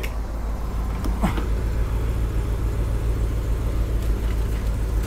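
Supercharged V8 of a Ram TRX pickup running steadily at low revs: a low, even rumble.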